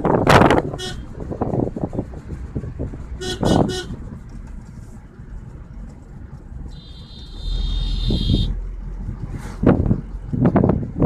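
Wind buffeting the microphone at first. Then a car horn: a few short toots about three seconds in, and a longer steady honk around seven to eight seconds, over the low rumble of a car driving.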